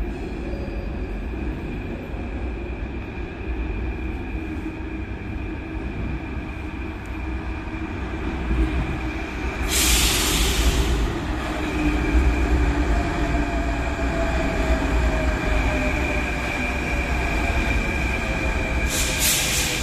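Athens Metro second-generation train running into the station: a steady low rumble that grows louder as it reaches the platform about halfway through, with a short burst of hissing at that point. Then a whine falls slowly in pitch as the train slows, and a second brief hiss comes near the end.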